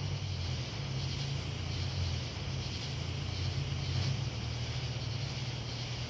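A steady low hum with an even hiss above it, unchanging throughout.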